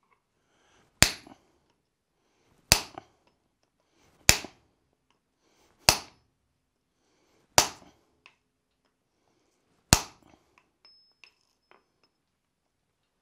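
Hand hammer striking a handled top fuller set on a hot steel bar on the anvil: six sharp metallic strikes about a second and a half apart, each with a short ring. The fuller is deepening the layout notches in the bar for a wrapped eye axe.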